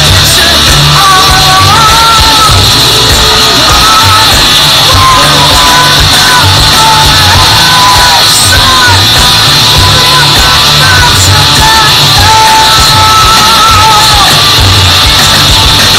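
Rock band playing live, a sung vocal melody over guitars, bass and drums, heard from in the audience. The music is very loud, close to overloading the recording.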